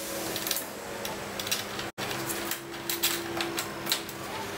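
Scattered light knocks and clicks as a plastic go-kart rear bar is handled and fitted against its metal mounting brackets, over a faint steady hum.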